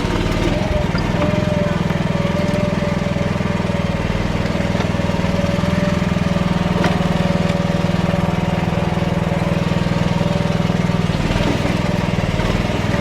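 AGT H12R mini excavator's small engine running at a steady speed, with a steady whine held over the low drone.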